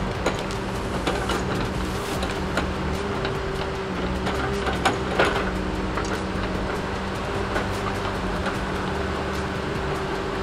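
Diesel engines of a Tigercat log loader and other logging machines running steadily, with scattered knocks and clatter of logs being handled, loudest about five seconds in.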